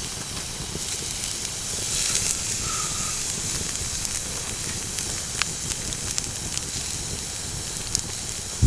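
Wood campfire burning: a steady hiss with scattered sharp crackles.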